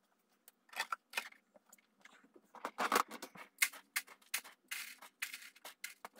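Irregular clicks, knocks and short scrapes of hands working in a rat cage: the wood-shaving bedding is shuffled and plastic cage accessories, such as the litter pan, are picked up and set down.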